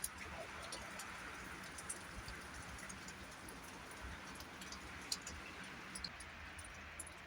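Strong wind blowing steadily, with a low rumble of wind on the microphone and scattered light ticks of raindrops.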